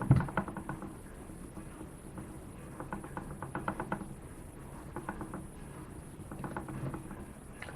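Metal hand tool working on a Yamaha XJ600 front brake master cylinder to free a part, making four short bursts of rapid clicking.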